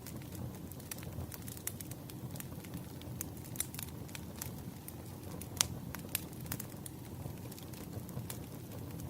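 Campfire burning: a steady low rumble of flames with frequent sharp crackles and pops from the burning wood, one louder pop a little past halfway.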